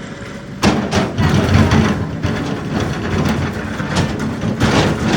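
Kobelco excavator working, its engine jumping to a loud rough rumble just over half a second in, with several sharp metallic clanks and knocks from the machine.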